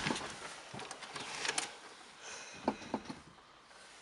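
A few faint, scattered clicks and rustles inside a car cabin, with the engine not running.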